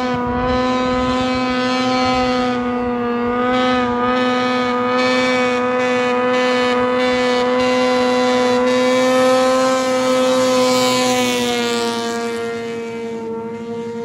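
Snowmobile engine holding a steady high-revving note as the sled skims across open water, growing louder, then dropping slightly in pitch and fading about twelve seconds in as it passes.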